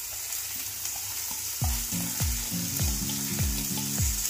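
Chopped onions sizzling in hot oil in a kadhai as a steel spatula stirs them, with faint clicks of the spatula on the pan. Background music with a steady beat comes in about a second and a half in and is the loudest sound from then on.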